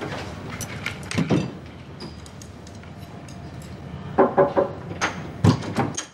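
Chopsticks clicking and clinking against a porcelain rice bowl and dishes on a tray while someone eats, with a quick run of light clinks about four seconds in and a sharper knock near the end.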